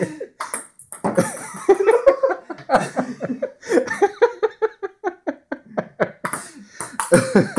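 People laughing, with coughs and breathy outbursts mixed in.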